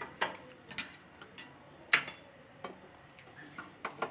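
Hot aluminium kadai with a little cooking oil in it, giving irregular sharp ticks and crackles, about eight over four seconds, the loudest about two seconds in.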